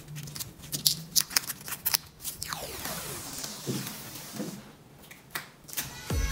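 Protective plastic film being peeled off a PVC window frame: a run of crackling, ripping sounds with short pauses between.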